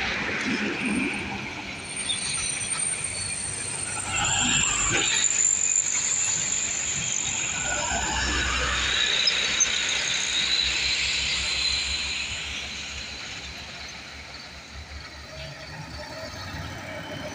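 Heavy trucks running on the road: a low engine rumble with a steady high-pitched whine and hiss. It swells from about four seconds in and eases off near the end.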